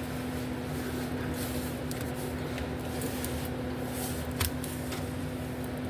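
Light clicks and rustling of hands working on parts under a vehicle, with one sharper click about four and a half seconds in, over a steady hum.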